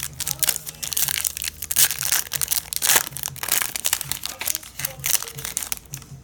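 Foil trading-card pack wrapper crinkling and crackling in quick irregular bursts as it is torn open and crumpled by hand.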